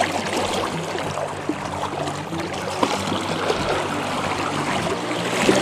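Flowing river current rushing steadily, with small splashes and trickles in the water close by.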